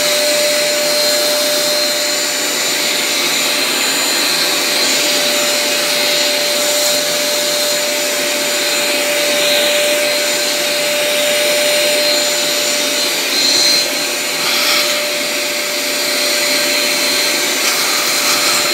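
Vacuum cleaner running steadily with a constant whine, its hose nozzle pushed into a stingless-bee hive box to suck out invading lemon robber bees.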